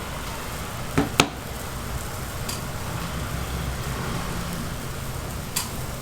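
Youtiao dough sticks deep-frying in hot oil, a steady sizzle over a low burner rumble. Two sharp clicks about a second in and one more near the end.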